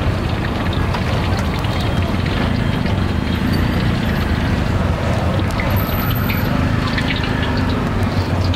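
Steady street noise: a low, engine-like rumble with scattered small clicks and clatter.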